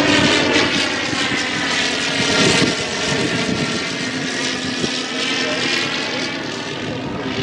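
1918 Thomas Morse S4-B biplane flying overhead, its piston engine and propeller droning steadily. The pitch rises slightly and then sinks after about two and a half seconds as the plane passes, and the sound eases a little toward the end.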